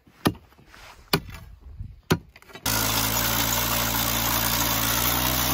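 A metal bar strikes into hard, rocky ground three times, about a second apart. Then a two-person gas-powered earth auger cuts in suddenly and runs loud and steady, boring a post hole in ground that lies over bedrock.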